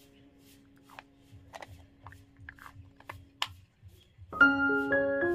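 Light plastic clicks and taps as a small blue plastic toy casserole and its lid are handled and snapped shut. About four seconds in, background music starts suddenly: a bright tune of short held notes that is much louder than the handling.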